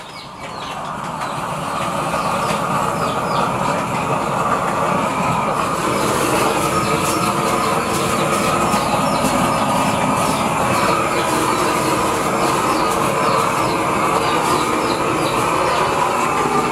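Blowtorch burning steadily, its flame noise building over the first two seconds, as it singes the hair off a goat carcass.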